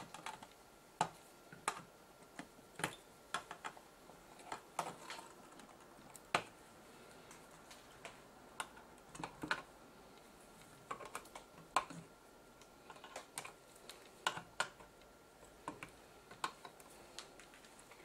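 Side cutters snipping the excess leads of freshly soldered electrolytic capacitors on a circuit board: a string of sharp, irregular clicks, sometimes a few in quick succession, sometimes a couple of seconds apart.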